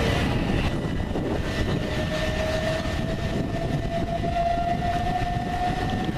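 Southern commuter train moving through the station with a steady rumble, and from about two seconds in a motor whine that rises slowly in pitch as it gathers speed.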